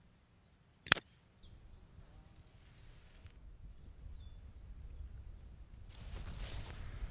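A single sharp crack from an air-rifle shot at a paper target about a second in. Birds chirp faintly after it, and footsteps swish through grass toward the end.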